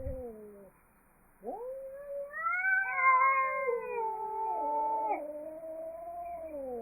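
Two angry cats caterwauling at each other before a fight: long, drawn-out, wavering yowls. One call fades out, then after a short pause the calls rise again, overlap and hold for several seconds.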